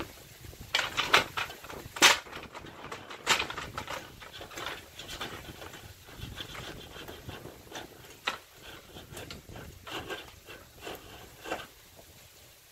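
Irregular clicks, scrapes and knocks of hand work on an aluminium screen frame as insect screening is pressed into the frame channels, loudest in the first few seconds.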